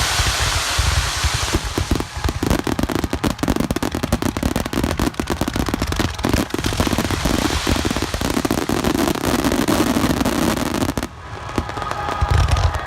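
Aerial fireworks bursting at close range: a dense, rapid barrage of sharp crackles and bangs over a low rumble. It cuts off suddenly after about eleven seconds and is followed by one more deep boom near the end.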